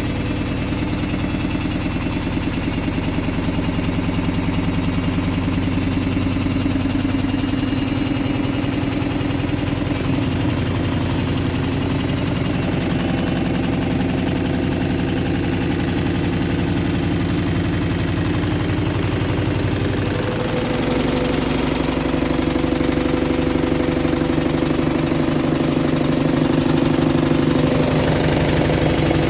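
Hoover washing machine going mental: a loud, steady motor drone with a fast, even rattle. Its tone shifts about twenty seconds in.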